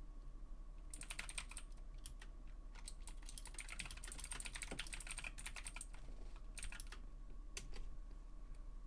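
Computer keyboard typing in quick runs of keystrokes, starting about a second in and stopping about seven seconds in, followed by a few single clicks. A faint steady hum runs underneath.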